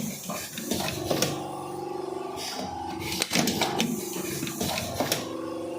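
Automatic vertical cartoning machine running: a steady motor hum with sharp mechanical clacks about every two seconds and short hisses of compressed air as its pneumatic parts cycle.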